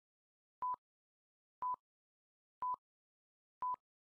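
Countdown timer beeping: four short beeps of one steady, fairly high pitch, one each second, with silence between them.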